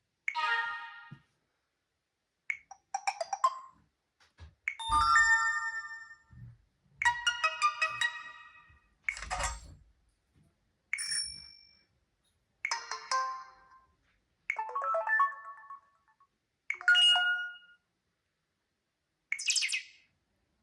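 A Samsung Galaxy Mini phone's speaker playing its built-in tones one after another, about eleven short different chimes and jingles of a second or two each, separated by brief silences.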